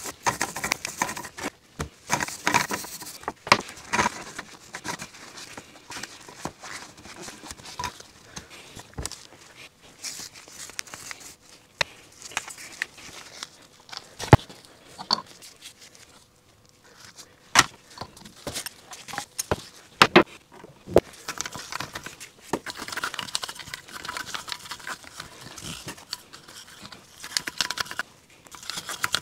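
Hand brush scrubbing grime off an electric motor's rotor in a plastic tub: uneven scratchy strokes with occasional sharp knocks of metal against the tub or bench, quieter for a moment about halfway through.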